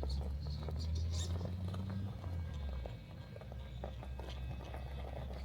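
Axial SCX10 II RC crawler driving over rough ground: irregular small clicks and scrabbling patter from its tyres and loose stones, over a steady low rumble.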